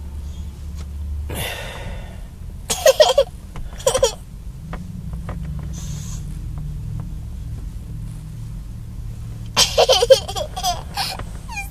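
A young girl laughing inside a car: a short laugh about three seconds in, another about a second later, and a longer fit of giggling near the end, over a steady low car hum.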